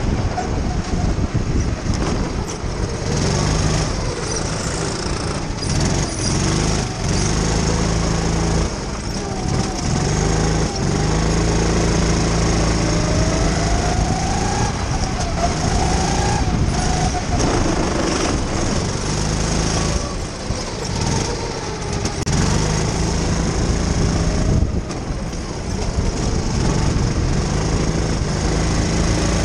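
Racing kart's small engine heard onboard at close range during a lap, its pitch rising as it accelerates out of corners and dropping back when the throttle comes off, over and over.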